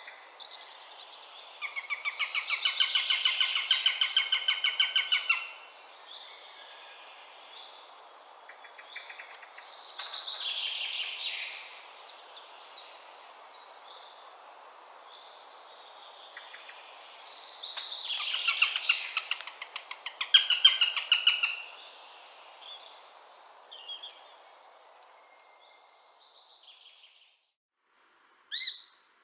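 Eurasian sparrowhawk calling: two bouts of a fast chattering series of sharp notes, with fainter bird calls in between.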